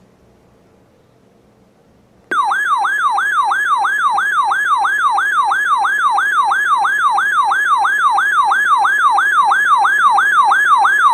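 Electronic siren-like alert tone from emergency-alert weather radio equipment. It starts abruptly about two seconds in and warbles continuously in repeated falling sweeps, about three a second. It is the alarm that heralds a new alert, here a severe thunderstorm warning.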